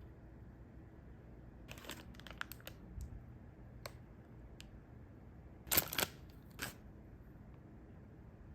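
Snack packaging being handled: short bursts of crinkling and clicking. There is a cluster about two seconds in, single ticks around four seconds, and the loudest crackles a little after the middle.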